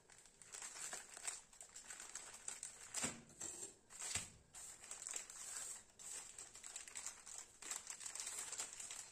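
Plastic biscuit-packet wrapper crinkling as gloved hands handle it, with two sharper knocks about three and four seconds in.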